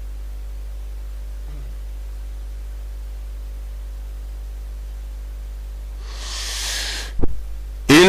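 A pause in Quran recitation, filled by a steady low electrical hum. About six seconds in there is a long audible intake of breath by the reciter, then a brief click, and the reciter's chanting voice starts again at the very end.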